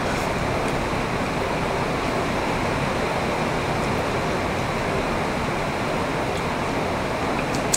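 Heavy rain falling steadily, a dense even hiss, with a few faint clicks and a sharper one near the end.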